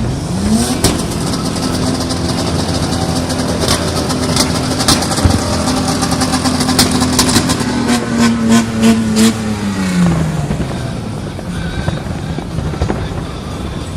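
An engine revs up within the first second, holds a steady high note for several seconds, then lets off and winds down about ten seconds in. Many sharp cracks and pops sound over it, thickest in the middle of the revving.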